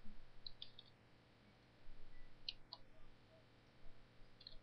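Faint clicks of a computer keyboard and mouse while a user name and password are entered: three short clusters of clicks, about two seconds apart.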